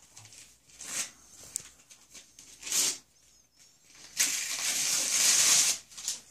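Gift-wrap paper rustling and crinkling as a small child opens a wrapped present bag: a few short crinkles, then a longer, louder rustle of about a second and a half near the end.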